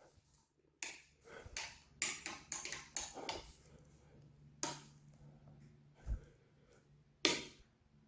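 Scattered short clicks and scuffs, a cluster in the first few seconds and then single ones about five, six and seven seconds in, one of them a low thump, over a faint steady low hum.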